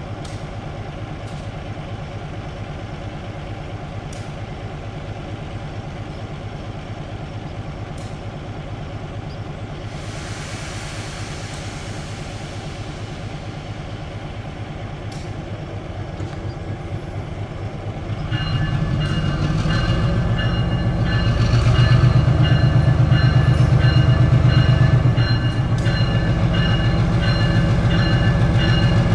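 EMD SW9 switcher's V12 567 diesel idling with a steady low throb, a short hiss about ten seconds in. About two-thirds of the way through the engine throttles up and gets louder as the locomotive pulls away, with a steady whine over the engine.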